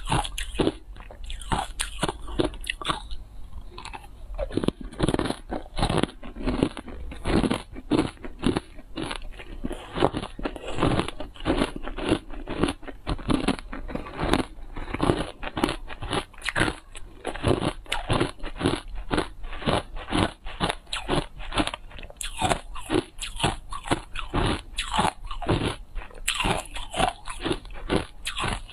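Hard ice coated in matcha powder being bitten and chewed close to the microphone: a steady run of crisp crunches, several each second.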